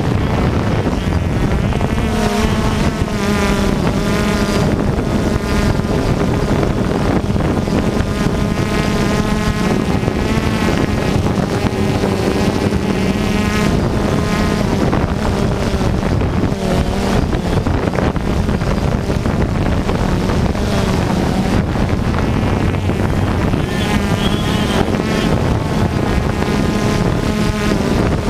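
Several radio-controlled off-road cars running on a dirt track, their motors revving up and down in high, buzzing whines as they accelerate and brake through the corners.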